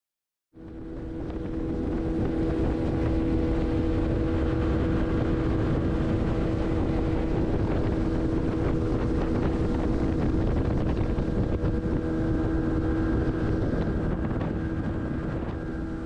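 Pirogue's outboard motor running at speed: a steady drone with wind on the microphone and water rushing along the hull. It comes in about half a second in, builds over the next second or so, and eases off near the end.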